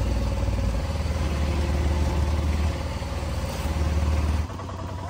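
Auto-rickshaw engine running steadily while under way, heard from inside the open passenger cabin. The engine note eases and gets quieter about four and a half seconds in.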